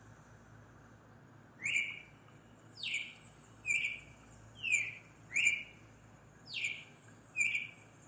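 Bird-like chirping as the little bird's song: seven short calls about a second apart, each a quick falling whistle.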